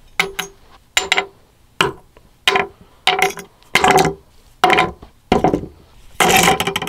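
Metal camping tools (a hatchet, knives, a flashlight, carabiners) being set down one after another on a table: a dozen or so separate clinks and knocks with short ringing, and a longer clatter near the end.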